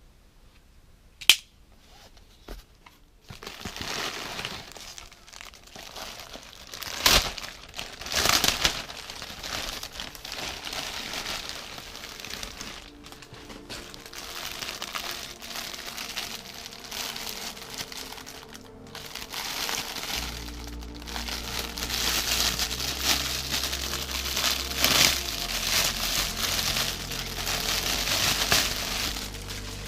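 Packaging crinkling and rustling as a parcel is handled and opened, in irregular crackly bursts with a sharp click about a second in. Background music comes in about twenty seconds in and plays under the crinkling.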